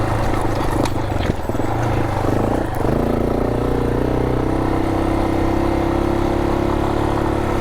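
Single-cylinder 250 cc trail motorcycle engine running at low riding speed, its revs shifting briefly about two to three seconds in, then holding steady.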